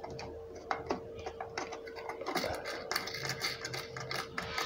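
Screwdriver working the screws of a plastic wall switchboard cover: irregular small clicks and scrapes that come thicker in the second half, over a faint steady hum.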